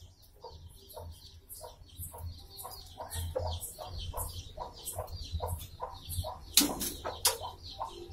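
Chickens clucking in a steady run of short clucks, about three a second. Near the end come a few loud, sharp sounds as the rooster flaps up into the coop's hatch.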